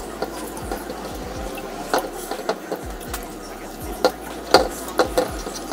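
Eating by hand: fingers squishing and mixing rice and fried chicken in a wooden bowl, with chewing and mouth sounds. A scattering of short sharp clicks, the loudest a little after the middle.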